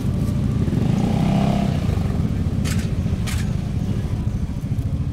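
Suzuki Address scooter's single-cylinder engine running at low speed with a steady low rumble as it rolls through a parking lot, swelling slightly about a second in. Near the middle there are two short high hisses about half a second apart.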